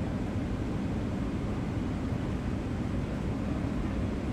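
Steady cabin noise inside a Boeing 777-300ER airliner: an even low rumble that holds at one level throughout.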